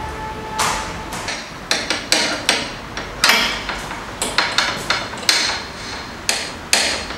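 Metal tools being worked on a scooter: a run of irregular, sharp hammer-like strikes and clanks, about two a second, starting about half a second in, each ringing briefly.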